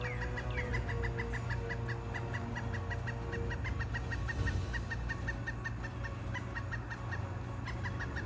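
Woodpecker calling: a fast, even series of short high notes, about five a second, with a few downward-sliding notes near the start.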